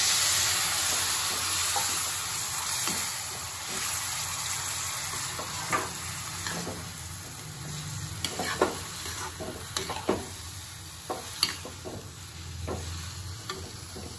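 Water poured into a hot metal kadai of frying noodles and vegetables sizzles loudly, the sizzle fading over the next few seconds. Then a metal ladle scrapes and clicks against the kadai as the noodles are stirred.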